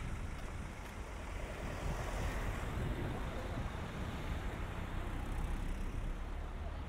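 Outdoor ambience: a steady low rumble with a hiss over it, swelling a little about two seconds in.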